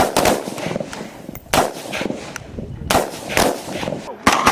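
A series of single gunshots, one every second or so, each trailing off in echo.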